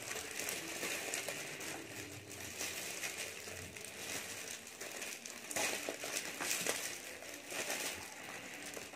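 Shiny metallic foil gift wrap crinkling and tearing as it is pulled open by hand, with a few louder rustles about six seconds in.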